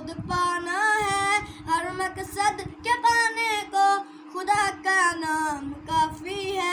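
A boy singing an Urdu hamd (devotional song in praise of God) solo, in long drawn-out melodic phrases, with a steady hum underneath.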